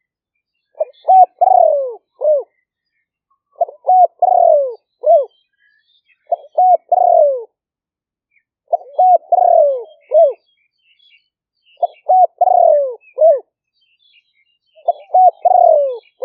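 Spotted dove cooing its song in the style used for decoy calling: six repeated phrases about every two and a half seconds, each a few short notes, a longer falling coo and a short closing note. Faint chirps of small birds sound in the background.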